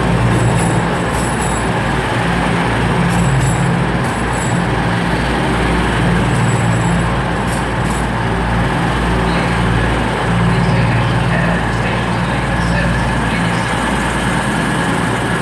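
Diesel engines of a Class 222 Meridian diesel-electric multiple unit running as it pulls into the platform: a steady low hum that swells and eases. Brief high-pitched squeaks come and go in the first half.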